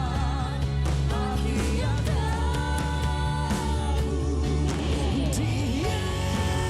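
Live rock band playing a song, with bass and drums under a sustained, wavering melody line that bends in pitch about four seconds in.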